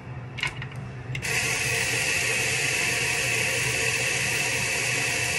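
A hair dryer switched on about a second in after a couple of light clicks, then blowing steadily.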